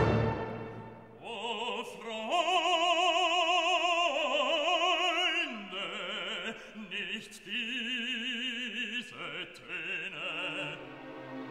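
Background music of operatic singing: a voice holding long notes with wide vibrato, changing pitch a few times, over a soft classical accompaniment.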